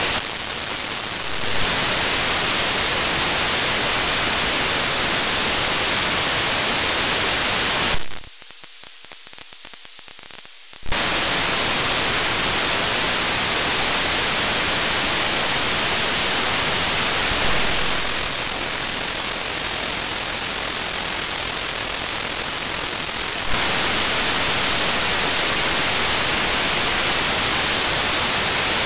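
Steady white-noise static from an SDR receiver's wide-FM demodulator as it is tuned across the FM broadcast band, with no station audio coming through: the fault of no sound on local wide-FM stations. The hiss cuts out for about two and a half seconds near a third of the way in. Later it is quieter, with a low hum, for several seconds.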